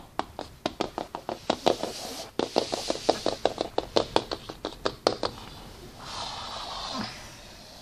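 A plastic horse figurine tapped quickly against a wooden floor to mimic galloping hoofbeats, about six taps a second for some five seconds, followed by a short scraping rustle.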